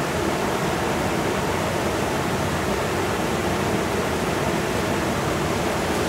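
Homemade wooden dust-collector blower impeller spinning at speed, a steady loud rush of air and running motor with no change in pitch.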